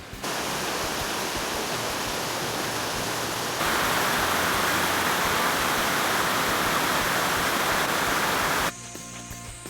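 Waterfall: a steady rush of falling water that gets louder about a third of the way in and cuts off abruptly near the end.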